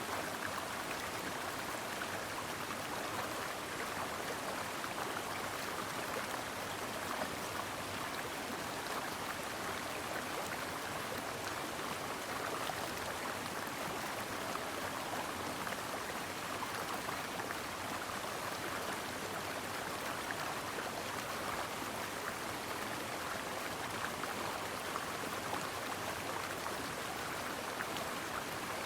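Small mountain stream flowing over rocks, a steady even rush of water.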